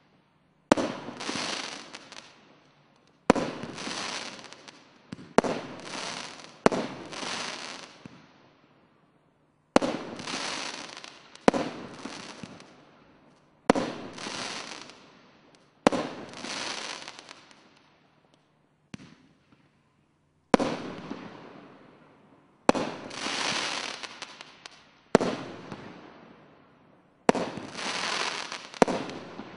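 A SkyLine Street Collection consumer fireworks battery firing shot after shot, about fourteen in all at uneven gaps of one to three seconds. Each shot is a sharp bang followed by a noisy tail that fades over a second or two.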